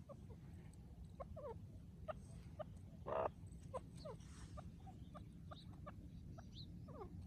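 Grey francolin (white partridge) and birds calling: a string of short sharp chirps and a few falling notes, with one louder, harsher call about three seconds in, over a low steady rumble.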